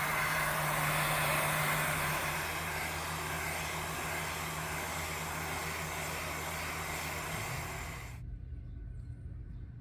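Heat gun blowing hot air, a steady hiss that cuts off suddenly about eight seconds in, as the cracked plastic bumper is heated to soften it for pushing back into shape.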